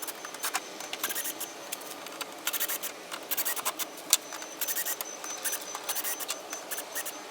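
Irregular scraping and clicking of plastic and tools as a car's fender flares are pried and unfastened, with many short sharp clicks in quick succession.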